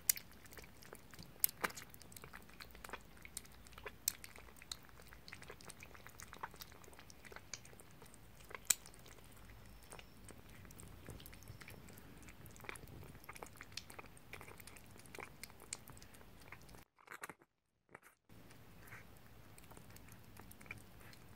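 Two kittens chewing soft food from shallow ceramic bowls, heard as a run of small, irregular wet clicks. The sound drops out completely for about a second, some three quarters of the way through.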